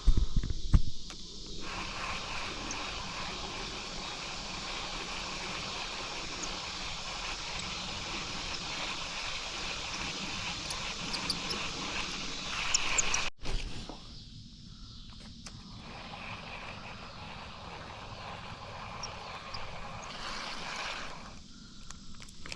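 Outdoor ambience of a steady insect chorus, with a few faint high chirps. There is a loud low knock of handling noise about half a second in, and the sound cuts out for an instant about halfway through.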